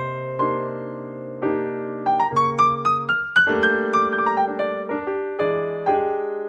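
Slow, calm solo piano music: held chords over low bass notes, with a quick rising run of single notes about two seconds in.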